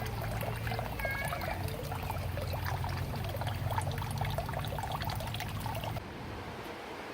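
Water trickling and splashing in a garden stream, with a brief high chirp about a second in. About six seconds in, the sound cuts abruptly to a quieter, even hiss.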